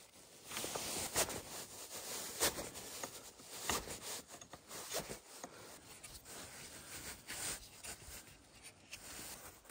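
A hatchet blade scraping and knocking against split wooden sticks, with rustling of dry wood shavings, in irregular strokes and clicks.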